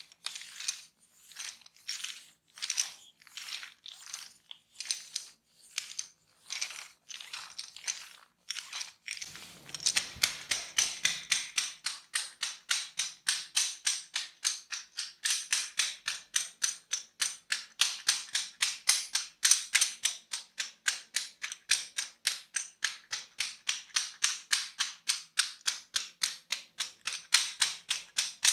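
Hands working a head in a massage, first in rhythmic swishing strokes about one and a half a second. About nine seconds in they switch to fast, even hand tapping, about four strikes a second.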